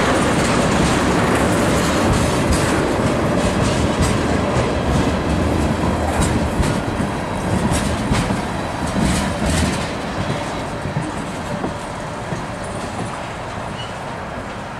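Freight train of tank cars rolling past, the wheels clicking over the rail joints. About ten seconds in the sound starts to fade as the end of the train moves away.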